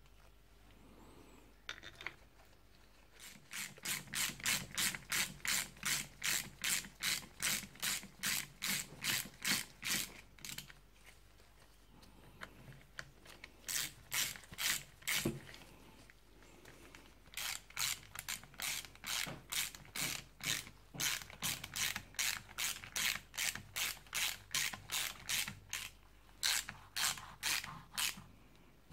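Ratchet wrench clicking in steady runs of about three clicks a second, with two short pauses, as bolts are run in to join the two halves of a motorcycle brake caliper.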